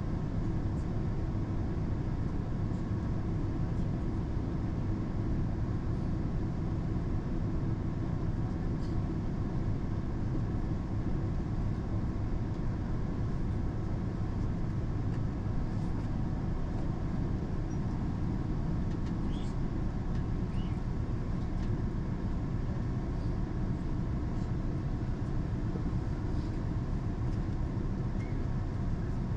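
Steady low rumble of a moving train heard from inside the passenger car, with a few faint light ticks now and then.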